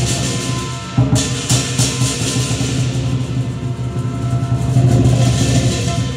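Chinese lion dance percussion accompanying the lion: the big lion drum beaten in a fast, steady roll, with cymbals crashing in loudly from about a second in.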